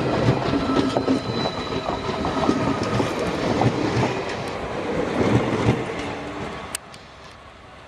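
Express passenger train passing, its wheels clattering over the rail joints in a stream of quick clicks. The noise drops away suddenly about seven seconds in.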